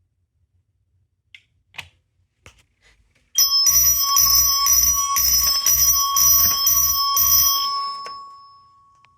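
Simplex mechanical fire alarm chime sounding in alarm: a loud, rapid ding-ding-ding of about two strokes a second that starts a few seconds in. The strokes stop after about five seconds, and the chime's tone rings on and fades away.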